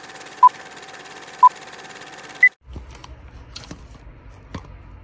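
Film-leader countdown sound effect: a beep once a second over a steady projector-like hum and crackle, ending on a single higher beep about two and a half seconds in, then cutting off. After that, a low rumble with scattered clicks and taps.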